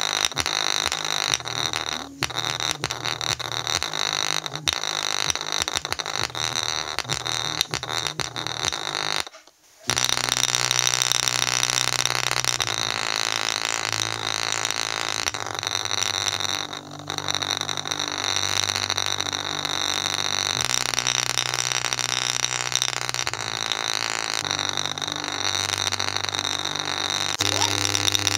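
JBL portable speaker pushing hard bass through its passive radiator, with a golf ball resting on the radiator and buzzing and rattling against it. For the first several seconds the bass comes in choppy pulses with clicks. After a brief dropout, steady low bass tones play, changing pitch every few seconds under a harsh buzz.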